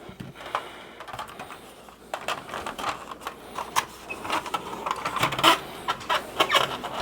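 Hard plastic toy-jet shell being worked by hand: irregular clicks, taps and light scrapes, sparse at first and busier from about two seconds in.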